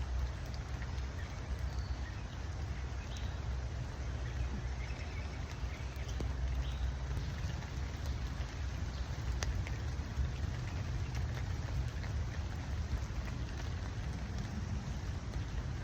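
Steady rain falling, with scattered faint drop ticks over a continuous low rumble.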